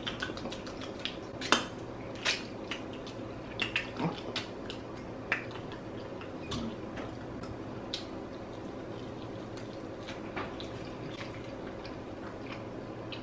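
Two people chewing barbecue chicken wings up close to the microphone: scattered wet mouth clicks and lip smacks over a faint steady hum.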